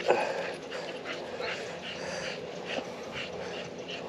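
Small dog making short, repeated noises, about two or three a second, while it pulls hard on its leash.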